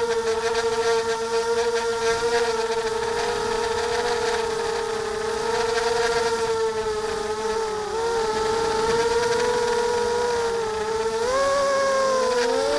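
Multirotor drone's electric motors and propellers whining steadily in flight, one main pitch with overtones that wavers slightly, dips briefly about eight seconds in and rises near the end.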